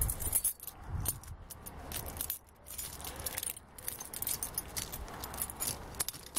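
A bunch of keys jangling against a padlock and steel chain as they are handled: a run of small metallic clicks and jingles, with a sharper clack at the end.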